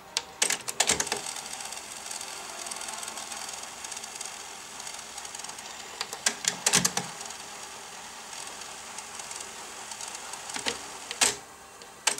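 Technics RS-T330R double cassette deck's tape mechanism clicking in several short clusters, over a steady faint tape hiss in the gap between songs.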